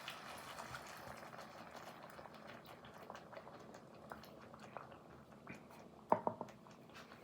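Pan of salmon sizzling and bubbling with fine crackles, slowly dying down. Two light knocks about six seconds in.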